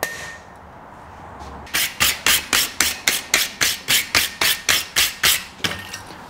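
A hammer strikes a touch-mark stamp on a steel chisel once, with a short ring. After a pause comes a quick, even run of about fifteen light hammer blows on the chisel laid flat on the anvil, about four a second.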